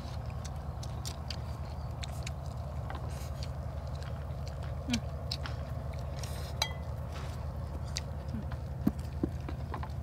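People eating noodles with chopsticks: wet chewing and slurping, with scattered short clicks and smacks, over a steady low hum.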